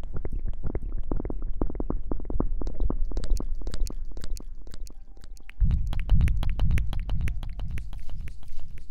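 Close-miked ASMR rubbing and scratching on the microphone: fast, crackly strokes over a low rumble that gets heavier about five and a half seconds in.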